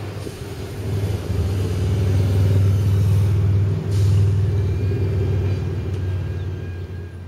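A PCC streetcar running along its track as it approaches and passes close by: a low, steady sound that grows louder through the middle, then fades near the end.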